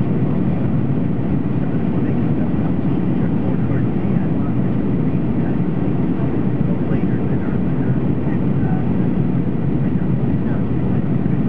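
Steady cabin noise inside a Boeing 737-800 beside the wing during descent: the CFM56 turbofan engine and the rushing airflow make an even, low-heavy noise with no change in level.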